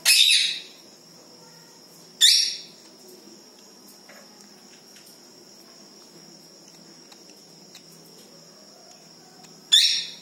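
A baby Indian palm squirrel gives three short, shrill chirps: one at the start, one about two seconds in, and one near the end. A steady high drone of crickets runs underneath.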